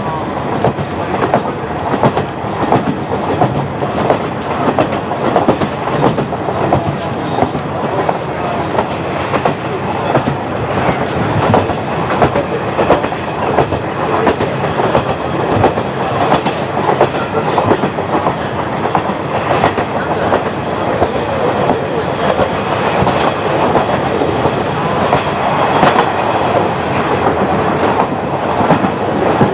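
KiHa 40 diesel railcar running steadily along the line, its wheels clicking irregularly over the rail joints.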